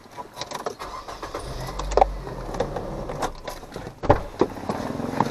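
Car keys jangling and clicking at the ignition, with a brief low rumble from the car about a second and a half in and a loud thud about four seconds in.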